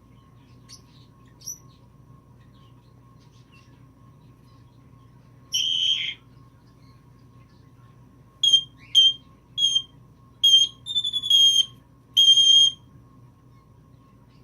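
Timneh African grey parrot mimicking a Messenger call ringtone: one longer high beep about five and a half seconds in, then a run of short, clipped electronic-sounding beeps from about eight seconds to near the end.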